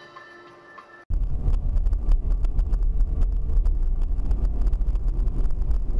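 Dashcam audio: faint steady tones, then an abrupt cut about a second in to loud, low rumbling driving noise with wind buffeting the microphone and constant crackle.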